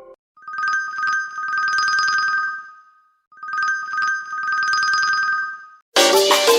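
Mobile phone ringtone imitating a telephone bell: a trilling ring on two pitches, sounding twice with a short gap between the rings. Just before the end, a different, musical ringtone starts.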